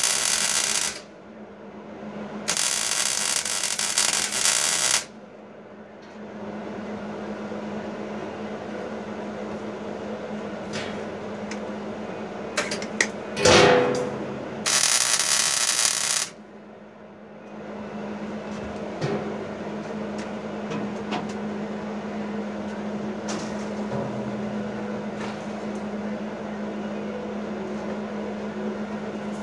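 Arc welding on a steel grill box, in three short runs of about one, two and a half, and one and a half seconds, each starting and stopping sharply. Between welds a steady low hum goes on, and a brief loud clatter comes just before the last weld.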